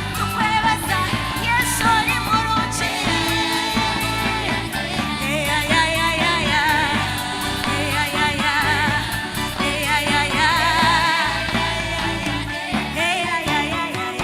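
Live band playing with singing, the voices held in wavering vibrato over a steady drum and bass accompaniment.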